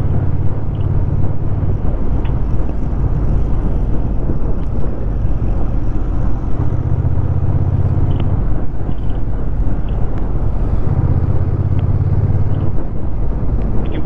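Honda Rebel 1100 DCT's parallel-twin engine running at a steady cruise, its low hum grows a little louder twice, once near the middle and once near the end, under wind noise rushing over the rider's helmet microphone.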